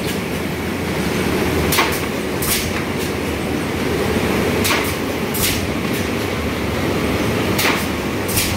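PET bottle blow-moulding machine running: a steady mechanical hum with short, sharp hisses of compressed air that come in pairs about every three seconds, in time with the machine's cycle.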